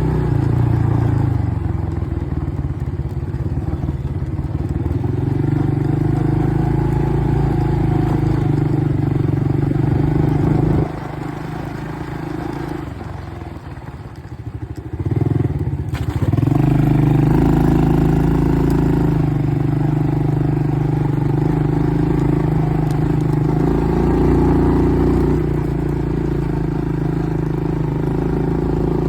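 ATV engine running steadily under throttle while riding. About eleven seconds in the throttle is let off and the engine note drops away for a few seconds, then it picks up again with a brief rising rev.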